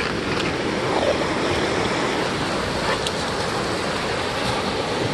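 Ocean surf breaking and washing up the beach: a steady, unbroken rush of waves and foam.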